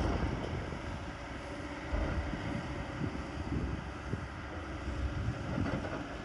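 Heavy diesel earthmoving machinery running with a steady low rumble, briefly louder about two seconds in.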